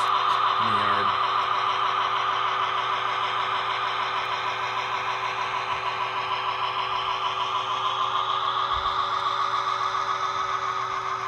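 Engine sound of a sound-equipped model locomotive, running steadily through its small speaker with a fine, even throb.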